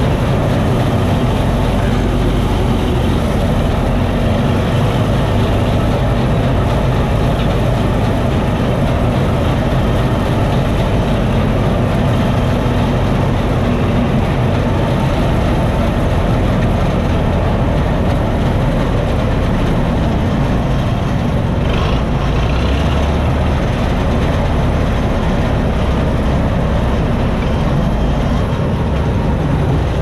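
Massey Ferguson 86 combine harvester running steadily, its engine and threshing machinery heard from the open driver's seat.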